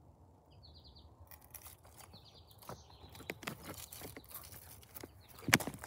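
A few short bird chirps in the first two seconds, then irregular scuffing, crunching and knocking as someone moves about on gravel and mulch, with one louder knock near the end.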